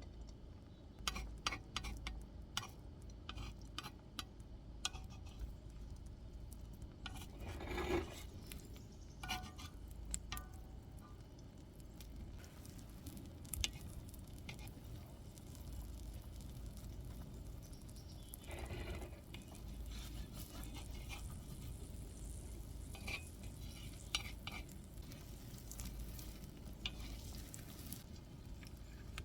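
Scattered light clicks and knocks of small hard objects being handled, over a low steady rumble, with two longer scraping sounds about 8 and 19 seconds in.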